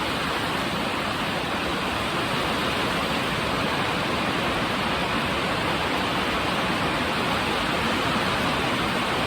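Steady hiss of heavy rain, an even rushing noise with no separate drops or knocks.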